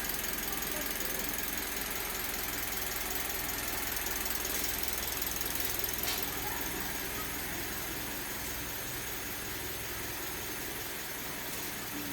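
Engine of a new Toyota Calya, a 1.2-litre four-cylinder petrol, idling steadily while it warms up.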